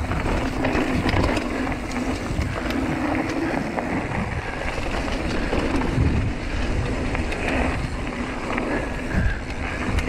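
Hardtail mountain bike rolling down a dirt trail: steady tyre noise on the dirt with many small clicks and knocks from the bike rattling over the ground.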